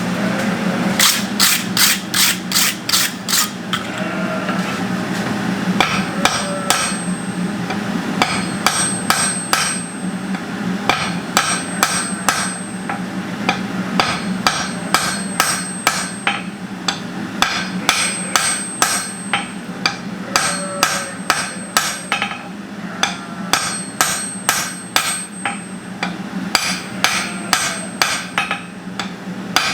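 Hammer blows on a hot steel bar on an anvil, drawing out a taper: quick runs of ringing strikes with short pauses between them, over a steady low hum.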